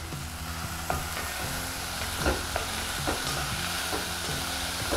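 Chopped carrots, French beans and onions sizzling in hot oil in a nonstick pan, stirred with a wooden spatula that scrapes and gives a few sharp knocks against the pan.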